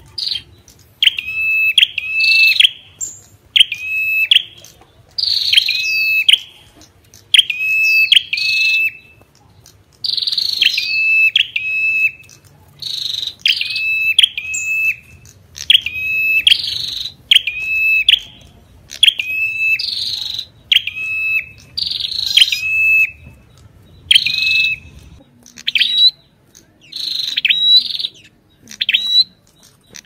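Ashy tailorbird singing: loud, clear short notes repeated in quick succession, each a quick downward sweep into a steady whistle.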